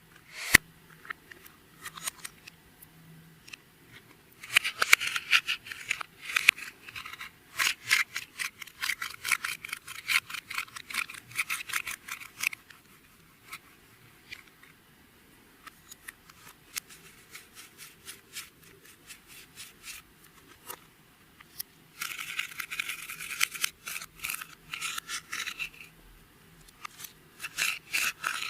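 Clear slime being mixed and worked by hand: rapid sticky crackling and popping clicks in two long stretches, with quieter pauses between.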